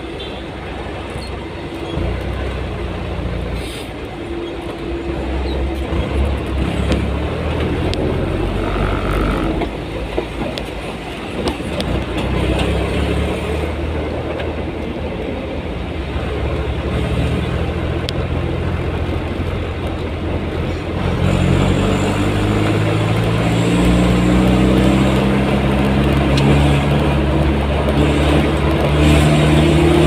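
Engine and road noise inside a moving vehicle's cab, a steady low rumble while creeping in traffic. About two-thirds of the way through, the engine pitch rises steadily as the vehicle accelerates.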